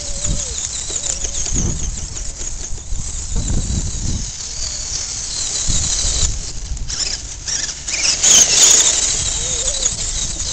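Scale RC crawler's electric motor and gearbox whining, the pitch wavering as the throttle changes, with gusts of wind buffeting the microphone.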